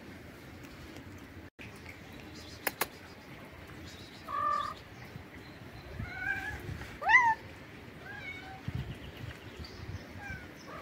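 A cat meowing about five times in short calls, starting about four seconds in, the loudest one rising then falling. Two sharp clicks come a little before that.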